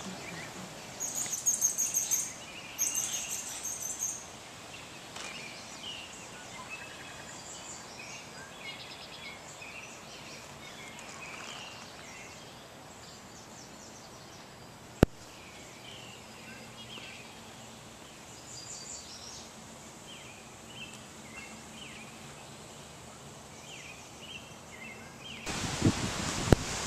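Birds chirping and calling, with two loud, high, rapid trills in the first few seconds. A single sharp click comes about halfway through, and near the end a rush of wind on the microphone takes over.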